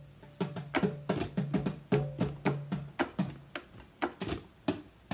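Djembe hand drum played with bare hands in a quick, steady rhythm of several strikes a second, many of them with a low ringing tone; the strokes thin out near the end.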